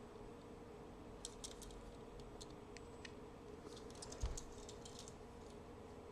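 Faint scattered clicks and scratches from fingers working at a small rusty pocket knife, trying to pry its single blade open, coming in two short clusters with a soft thump about four seconds in.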